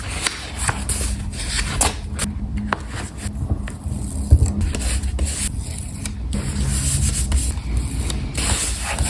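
Close-miked paper, stickers and tape being handled and rubbed down on a journal page: rustling and rubbing that comes and goes, with scattered small taps and clicks.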